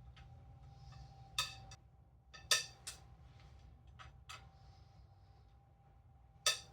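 Irregular sharp metallic clicks and clinks, about seven of them, from a socket and breaker bar working the 10 mm camshaft cap bolts on a Toyota 7M-GTE cylinder head as they are loosened in sequence. The loudest clinks come about two and a half seconds in and near the end.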